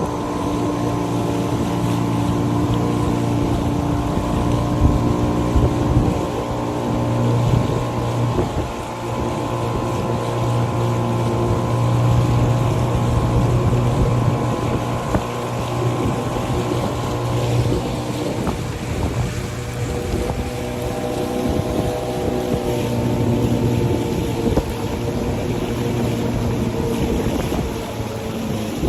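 Motorboat engine running steadily as the boat travels along a river, with wind buffeting the microphone.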